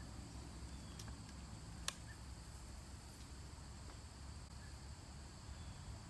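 Faint outdoor ambience: insects chirping steadily under a low rumble, with one short sharp click about two seconds in.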